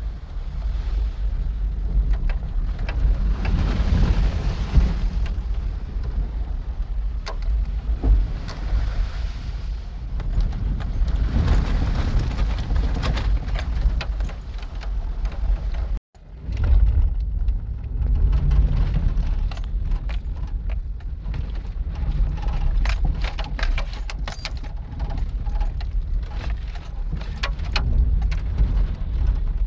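Chevrolet truck driving slowly over a muddy, puddled dirt trail, heard from inside the cab as a steady low rumble of engine and tyres. From about halfway in there is a busy spatter of clicks and rattles as mud and water hit the body. The sound breaks off for an instant about halfway through.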